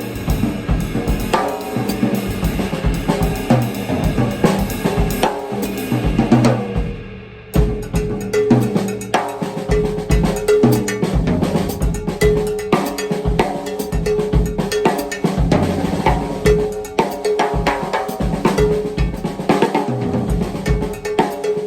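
Drum kit groove played around the tom as home base instead of the snare drum, with accents. The playing stops briefly about seven seconds in, then a new pattern starts with a repeated ringing, pitched stroke over the drums.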